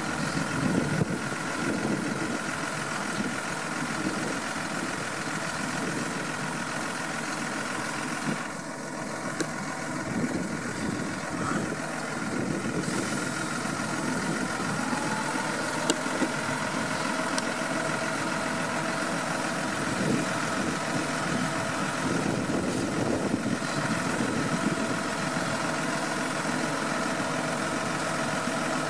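John Deere 6215R tractor's diesel engine running steadily, with a steady high whine over the engine note.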